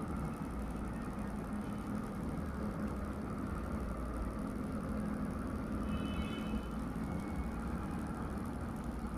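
Homemade brushless DC motor-generator (six-pole stator, eight-pole rotor) running steadily at speed under its controller, a low even hum from the spinning rotor.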